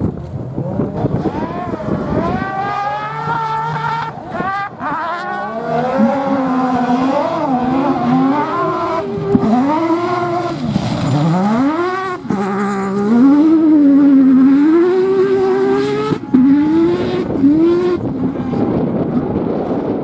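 Rally car engine revving hard, its pitch sweeping up and dropping again and again as the throttle is worked and the gears are changed, with some tyre squeal. It is loudest in the second half.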